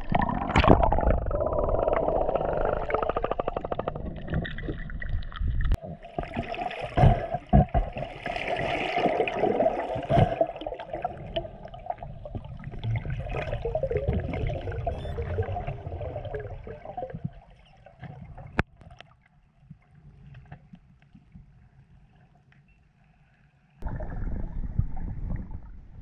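Water gurgling and sloshing around a camera in and under the water of a freshwater cenote, muffled and uneven, with several sharp knocks. It falls quieter about two-thirds of the way through and comes back suddenly near the end.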